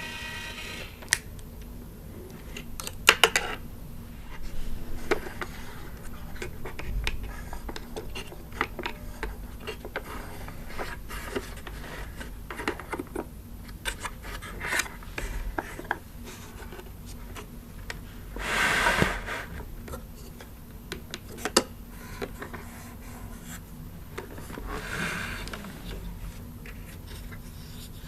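Hard plastic animatronic Halloween display being handled: scattered light clicks, taps and knocks as it is pointed at and moved, with a longer rubbing scrape about two-thirds of the way through.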